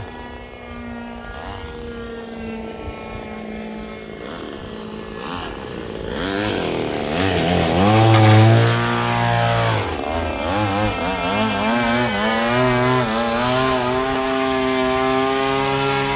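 Small propeller engines of radio-controlled model airplanes running, their pitch gliding up and down with throttle and passes. The engine sound is loudest about halfway through, while a model plane runs along the runway close by.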